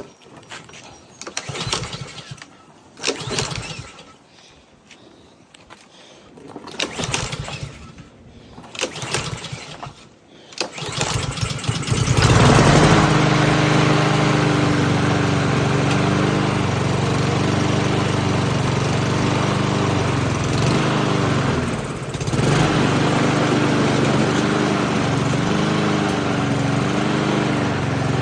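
Honda-engined Husqvarna walk-behind lawnmower being pull-started after long storage, primed with a little fuel: several pulls on the recoil starter, then about 12 seconds in the engine catches and runs steadily. Around 22 seconds in, the running sags briefly and recovers.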